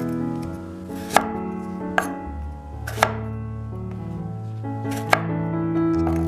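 Cleaver chopping through small round Thai eggplants onto a bamboo cutting board: four sharp knocks, about a second apart with a longer gap before the last, over background music.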